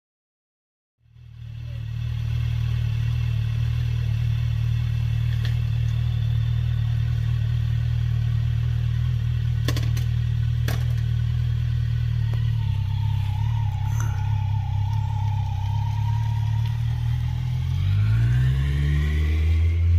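Kawasaki Z900 inline-four motorcycle engine idling steadily, its pitch rising near the end as it revs up. Two sharp clicks come about halfway through.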